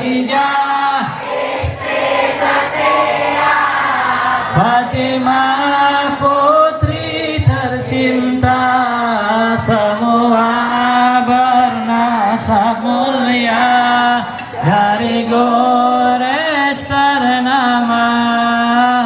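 Voices singing shalawat, Arabic devotional chanting in praise of the Prophet Muhammad, with a melody that rises and falls continuously.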